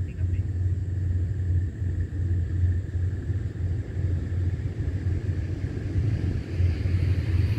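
Diesel locomotive engine working hard under throttle, a deep steady pulsing rumble. Higher-pitched noise builds near the end as the train draws nearer.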